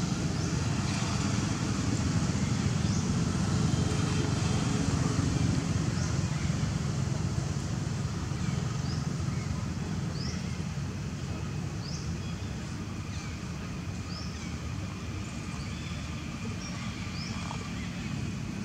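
Outdoor ambience: a steady low rumble, with short high rising chirps repeating every second or two.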